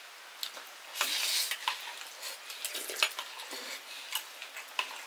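Metal cookware and utensils clinking and knocking, scattered sharp clicks, with a short hiss about a second in.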